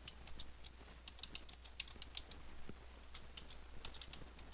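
Computer keyboard typing in quick, irregular keystrokes as an email address is entered into a web form, over a faint low hum.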